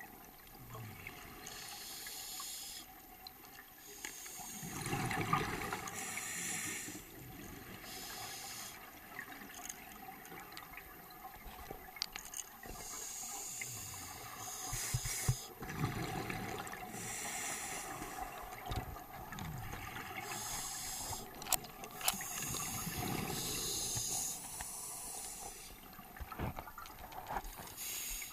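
Scuba diver breathing through a regulator underwater: hissing inhalations alternating with rushes of exhaled bubbles, a breath every four or five seconds, with a few sharp clicks.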